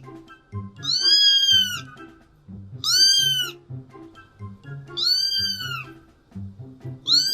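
A domestic cat meowing four times at an even pace, each meow about a second long and rising then falling in pitch, over background music.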